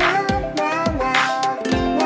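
A song with a steady beat and plucked-string accompaniment; a bright, swooping high note comes in twice, about a second apart.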